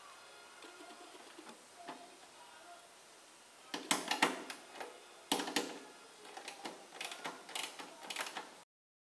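Bursts of metallic clicking and rattling from hand tools and small hardware while working at a wheel pant's axle mounting, starting about four seconds in and cutting off suddenly near the end.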